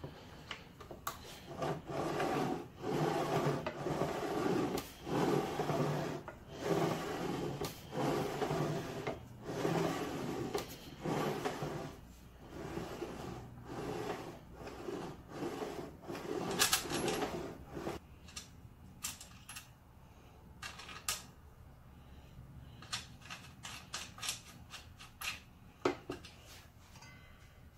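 Delta 10-inch compound miter saw being worked by hand: its moving parts give a rhythmic scraping rub, about one stroke a second, as they are pushed back and forth. After the first two-thirds the rubbing stops and a few lighter clicks and knocks follow as the saw head is tilted over to a bevel.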